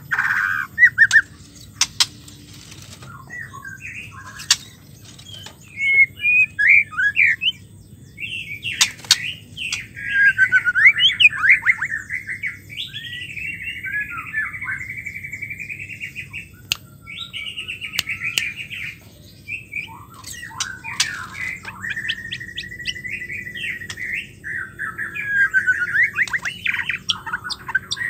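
Female white-rumped shama singing: a long run of varied whistles, chirps and rapid trills, broken by short pauses about 3, 8 and 19 seconds in, with a sharp click now and then.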